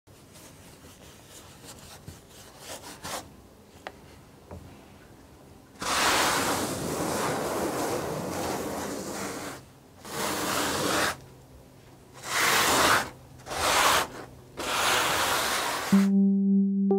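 Sanding or rubbing strokes across a surface: faint scratches and a few light clicks at first, then five loud rasping strokes of uneven length, the first about three and a half seconds long. Near the end, music with ringing, bowl-like tones comes in.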